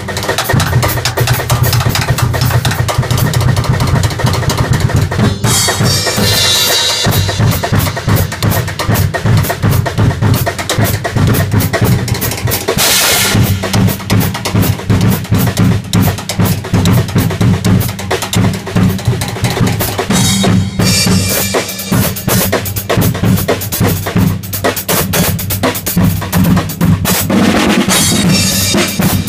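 Acoustic drum kit played in a fast solo, recorded on an iPad's built-in microphone: rapid snare and tom rolls over a single-pedal bass drum, with Zildjian cymbal crashes about six seconds in, again near the middle, about two-thirds through and near the end.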